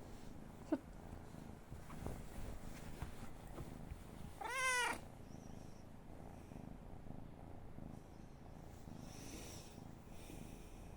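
Domestic cat purring faintly and steadily, with a brief squeak about a second in and one short meow that rises and falls in pitch around the middle.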